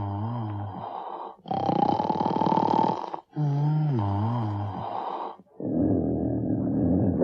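Brer Bear's cartoon snoring from Splash Mountain: a low, wavering snore on the breath in followed by a long breath out on a steady tone, then the same again. About five and a half seconds in, a lower, rougher rumbling snore begins.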